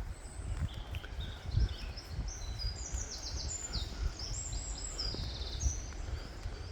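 A small songbird singing a run of quick, high, varied notes over a steady low rumble.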